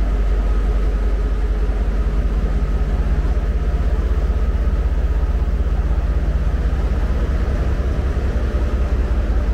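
Steady, loud diesel rumble and hum of a Pakistan Railways GMCU-15 diesel-electric locomotive idling at the platform, together with the train's power van generator running.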